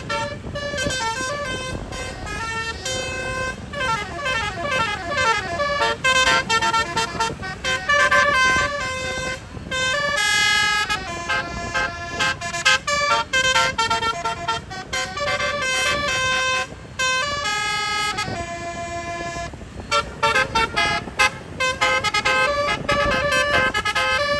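Bus telolet horns, the multi-tone 'basuri' type, playing melodic tunes in quick stepped notes. There is a run of sliding, siren-like notes about three to six seconds in.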